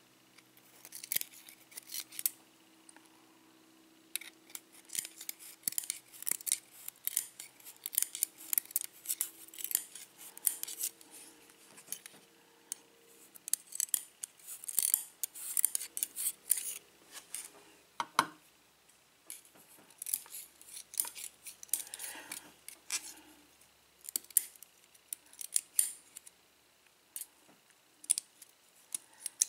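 Small metal tools clicking and scraping against the bible of a Schlage pin-tumbler lock cylinder as its springs and pins are worked out: irregular sharp metallic ticks, with one louder click about eighteen seconds in.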